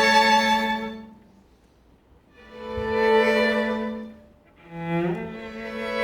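Bowed string ensemble of violins and cello playing long held chords. One chord fades out about a second in, another swells up and dies away in the middle, and a third swells near the end, with near-quiet pauses between them.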